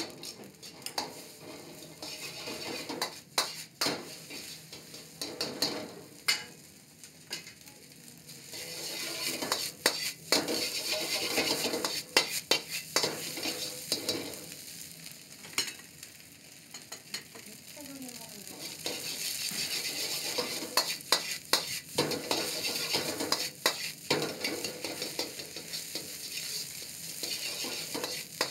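King crab fried rice sizzling in a wok over a gas burner, with the metal ladle clanking and scraping against the wok as the rice is stirred and tossed. The frying swells louder twice, with sharp ladle clicks all through.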